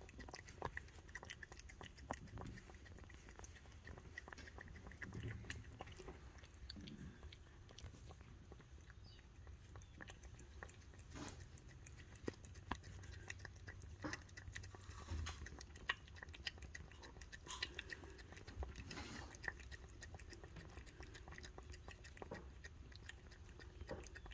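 A cat eating from a plate, licking up sour cream with quick, faint, wet mouth clicks and chewing.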